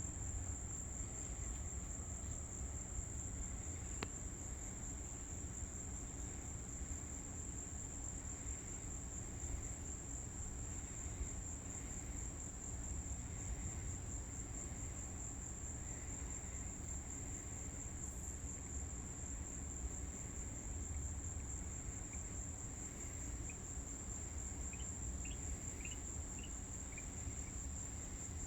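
Insects trilling steadily in one continuous high-pitched tone, over a low steady rumble, with a single click about four seconds in.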